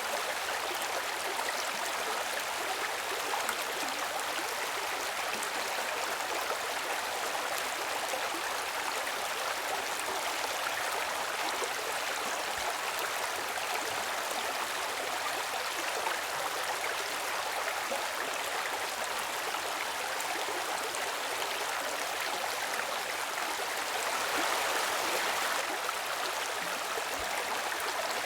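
Stream water flowing steadily, an even rushing wash that swells a little about three-quarters of the way through.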